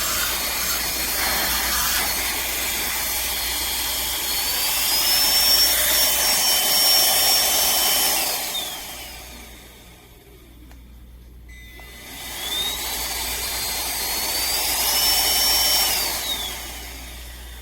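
Cordless handheld vacuum motor running with a high whine that rises in pitch and holds, then winds down. It starts up again a few seconds later, spins back up to the same high whine, and winds down again near the end.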